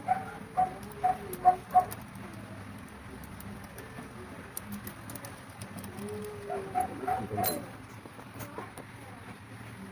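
A bird calling: a quick run of four or five short notes right at the start, and another shorter run about seven seconds in, over faint scattered clicks.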